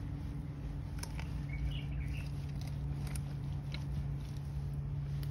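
Scattered soft clicks and scrapes of a crab burrow being dug out of wet mud, over a steady low hum. A brief faint chirping comes about two seconds in.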